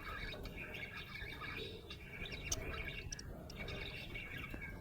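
Budgerigar chirping and warbling continuously in quick, short notes, with a few sharp clicks between.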